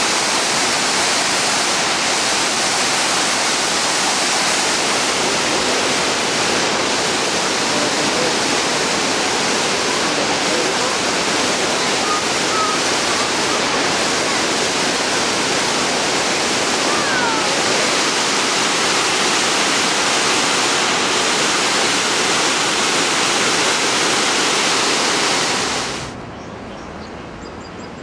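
Waterfall cascading over rock ledges: a loud, steady rush of water that cuts off abruptly near the end.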